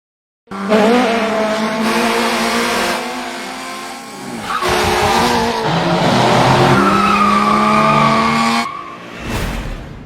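Car sound effect: a car engine running hard with tyres screeching, starting suddenly, dipping and picking up again around the middle, then cutting off sharply near the end, followed by a short low whoosh.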